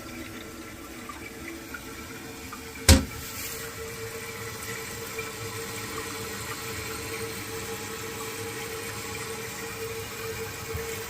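Toilet tank refilling after a flush: water running through the fill valve with a steady hiss and a faint steady tone. A single sharp click about three seconds in.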